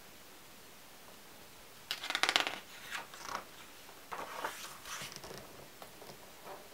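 A page of a photo album being turned by hand. A crisp crackle of paper comes about two seconds in, followed by softer rustling as the page goes over.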